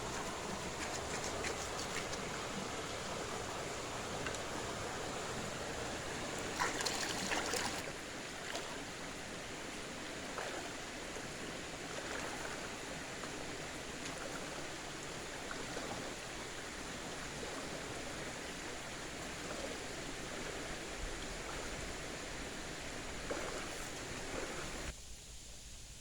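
Steady rushing noise with no clear pitch, with a short burst of crackling about seven seconds in; it drops away suddenly near the end.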